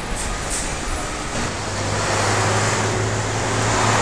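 City street traffic noise: a steady wash of road noise, with a low engine hum from a nearby vehicle coming in about a second and a half in and getting slightly louder toward the end.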